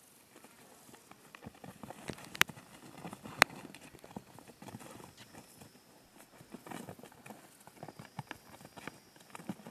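Two bulls fighting head to head: irregular knocks and scuffs of horns and hooves on dry grass, with two sharp clacks about a second apart near the middle.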